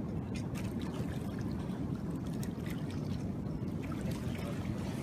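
Steady low rumble of wind and surf, with scattered light splashing and trickling water through the first four seconds.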